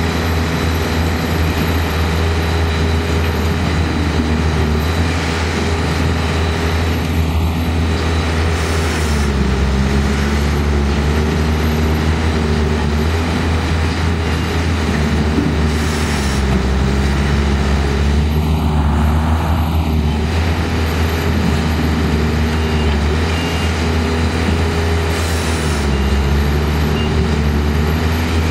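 Engines of machines running together, with a steady low drone. One engine's pitch dips and recovers every few seconds as it takes and sheds load.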